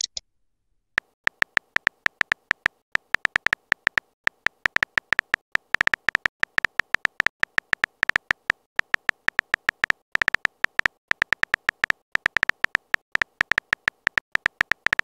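Keyboard tap sound effects of a texting app: a rapid, uneven run of short, high clicks, several a second, one per letter as a message is typed. They begin about a second in.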